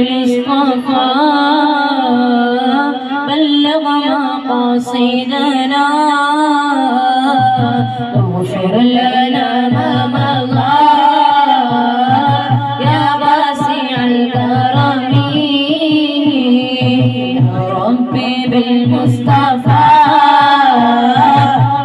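A group of boys singing together into microphones, one melody line carried the whole time. A low, regular beat comes in about seven seconds in.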